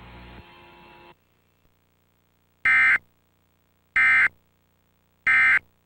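Emergency Alert System end-of-message tones: three short, high-pitched bursts of SAME digital data starting about 1.3 s apart, the code that closes an alert. Before them a faint hiss from the broadcast audio cuts off about a second in.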